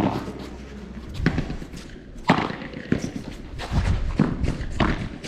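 Padel rally: about seven sharp, irregularly spaced pops as the ball is struck by padel rackets and bounces on the court.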